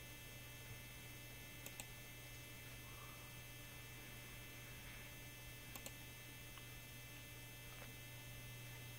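Faint steady electrical hum with a thin high whine, and computer mouse clicks in pairs, about two seconds in and again about six seconds in, as web pages are clicked through.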